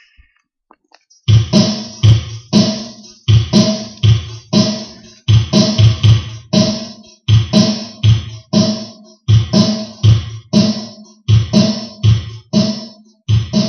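Recorded music starts about a second in, with a strong, steady beat of about two hits a second.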